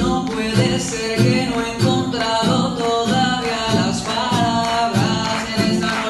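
Music with a steady beat and a man's voice performing into a handheld microphone.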